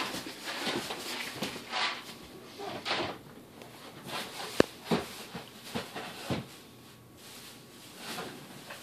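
Groceries being handled and stacked into a kitchen cupboard: bags rustling, cardboard boxes sliding and knocking, and a sharp click about four and a half seconds in.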